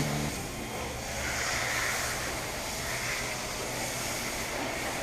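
Water spraying onto a car in a steady hiss, swelling briefly about one and a half and three seconds in.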